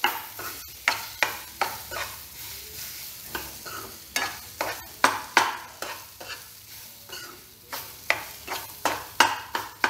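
A metal spoon stirring and scraping semolina and pineapple pieces around a non-stick kadhai in irregular strokes, about two or three a second, with ghee sizzling under it as the pineapple is sautéd into the roasted semolina.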